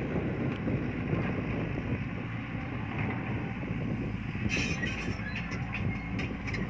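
Hydraulic excavator's diesel engine running steadily under load as the machine swings and digs, with a few short clicks about four and a half seconds in.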